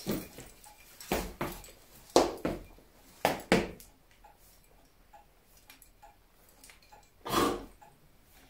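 A man making several short, breathy snorting sounds, a horse imitation, spaced irregularly. A quiet stretch follows, then one longer snort a little after seven seconds in.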